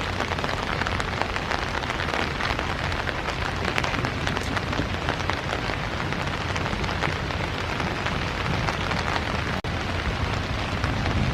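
Hard rain falling steadily: a dense hiss of rain made of countless individual drops striking close by, with a momentary gap in the sound near the end.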